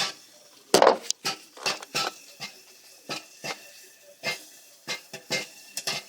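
Popcorn kernels popping in a home popcorn machine: sharp, irregular pops, about three a second, the loudest about a second in.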